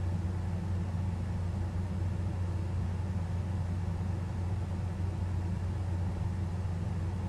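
Steady low electrical hum with a faint hiss, even throughout, with no scratching, gnawing or other distinct sounds.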